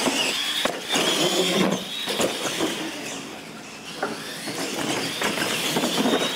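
Two radio-controlled monster trucks launch together and race across a concrete floor, their electric motors giving a high steady whine over the rumble of tyres, with several sharp knocks as they run over ramps.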